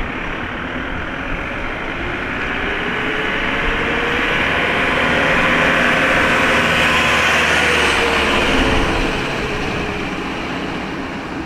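A vehicle passing close by: a steady rumble and hiss that swells to its loudest about six to eight seconds in, then fades away.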